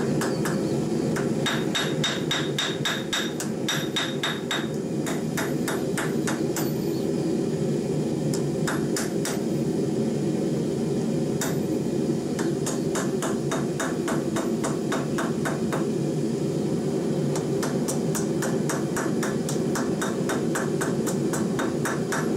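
Hand hammer striking red-hot 1084 carbon steel on an anvil: quick blows, several a second, with a few short pauses in the middle, as the end of the quarter-inch round rod is flattened and bent over the anvil's edge into a curved blade. Some blows ring off the anvil. A steady low rumble runs underneath.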